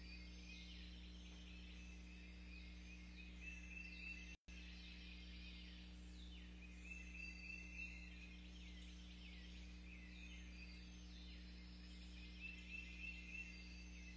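Dawn chorus of birds singing faintly: repeated trills held for a second or two, mixed with many short downward-sweeping notes, over a low steady hum. The sound cuts out completely for a moment about four seconds in.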